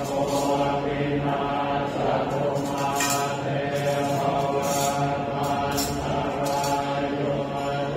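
A man chanting Thai chan verse in slow melodic recitation, holding long notes on a low, steady pitch.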